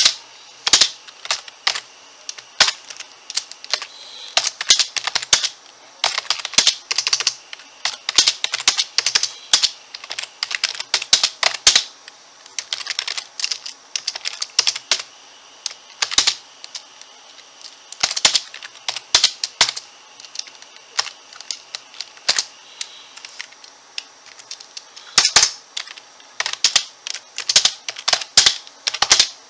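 Typing on a computer keyboard: runs of sharp, loud key clicks in quick bursts, broken by short pauses.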